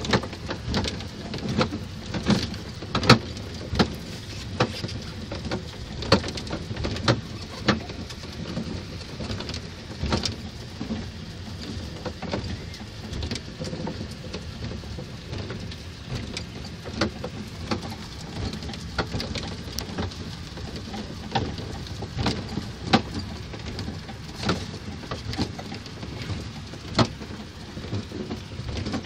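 Small ride-on kiddie train running, heard from inside its open car: a steady rumble and rattle with irregular knocks and clicks.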